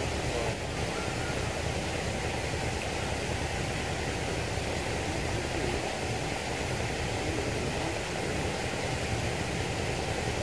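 Steady rushing of flowing river water, an even unbroken noise.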